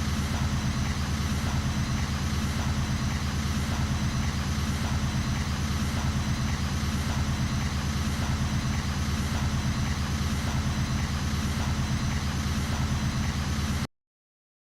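An engine idling steadily with a fast, even low pulse, which cuts off abruptly near the end.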